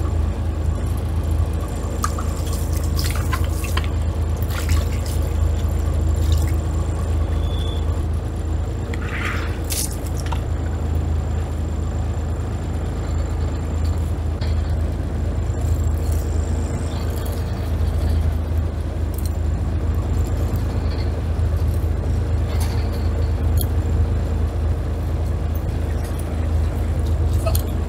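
Fishing boat's Yanmar diesel engine idling with a steady low hum. Over it come scattered taps and wet scrapes of a knife on a cutting board as a fish is filleted.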